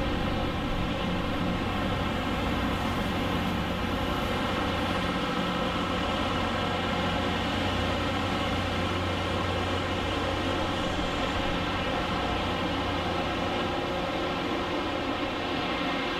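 LORAM rail grinder train passing, the diesel engines of its trailing power cars running in a steady hum of many held tones over a rushing rumble.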